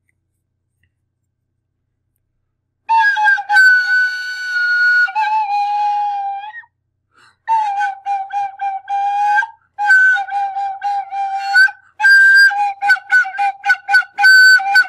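A small flute playing a simple, wavering tune that stays mostly around one note, starting about three seconds in. It goes in short phrases and ends in a run of quick, short notes.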